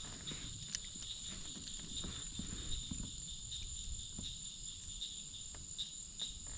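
Steady high-pitched chorus of insects with two unbroken tones, one higher than the other, and scattered light clicks and knocks over it.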